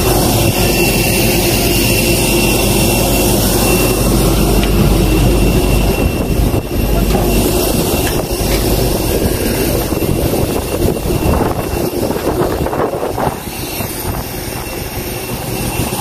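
Steady jet aircraft turbine noise on an airport apron: a continuous whine with a high steady tone over a low rumble. The rumble eases about six seconds in, and irregular low bumps come near the end.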